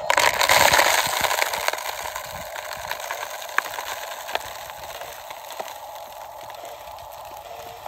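Gravel and small stones pouring out of a tipped Huina RC dump truck's bed and rattling down over rock, loudest in the first second and a half, then a steady trickle with scattered clicks of single stones landing.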